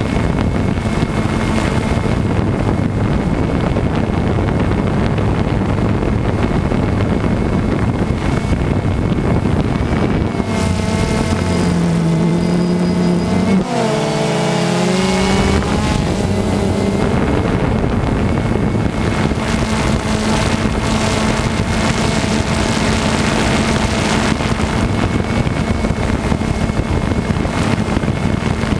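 DJI Phantom 2 quadcopter's motors and propellers buzzing steadily in flight, as heard from a camera on the drone itself. About halfway through, the pitch of the motors shifts and bends for a few seconds as the drone changes its thrust.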